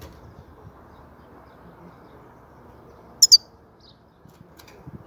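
European goldfinch giving a quick pair of sharp, high call notes about three seconds in, over faint steady background noise.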